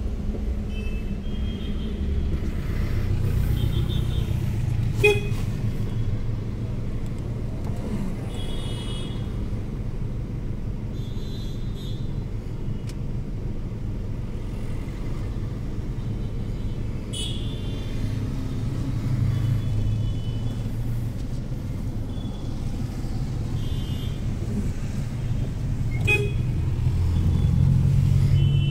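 Traffic heard from inside a car moving slowly through congestion: a steady low engine and road rumble, with many short car-horn toots from the surrounding vehicles and a few sharp clicks.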